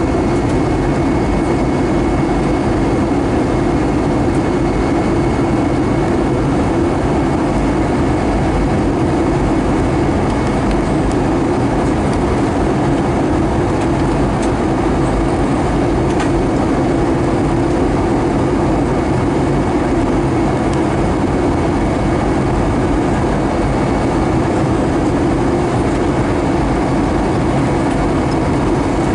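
Steady airliner cabin noise from an Airbus A320 descending to land, heard from a window seat beside the wing: engine noise and rushing airflow blend into a constant, unchanging drone with a faint steady high whine.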